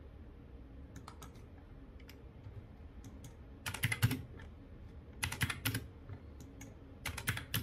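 Computer keyboard keys tapped in four short bursts of clicks, a second or two apart, as numbers are typed into a field; the first burst is faint and the later three are louder.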